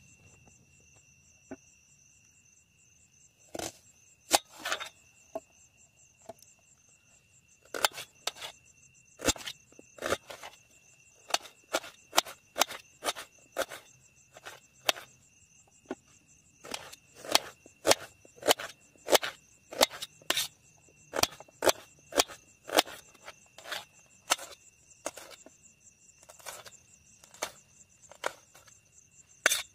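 Kitchen knife chopping onion and green chillies on a stainless steel plate: sharp, irregular taps of the blade on the metal, sparse at first and coming quicker from about eight seconds in. Insects trill steadily at a high pitch underneath.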